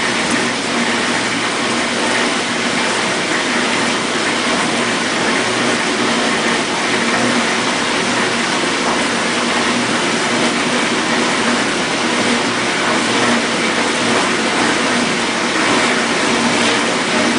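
1958 GE Mobile Maid dishwasher running its wash cycle: a steady motor hum under an even rush of water spraying inside the tub, unchanging throughout.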